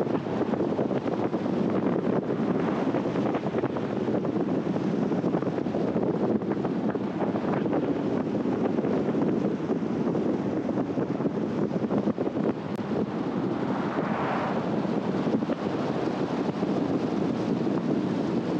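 Steady wind and road noise of a moving car, with a brief swell of higher hiss about fourteen seconds in.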